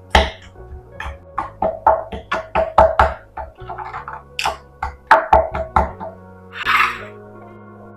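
Background music with a rhythmic percussive beat over a stepping bass line, with a brief hissy swish near the end.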